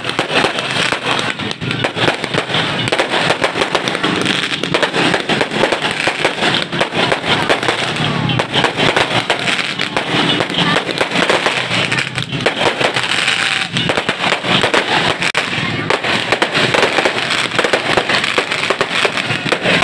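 Aerial fireworks going off in rapid, continuous succession: a dense run of bangs and crackles from shells bursting overhead and rockets launching.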